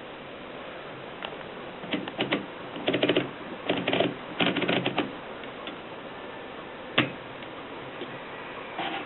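Mercedes Superba manual typewriter being typed on: quick runs of sharp key strikes after a short pause, then a single louder strike and more keystrokes near the end.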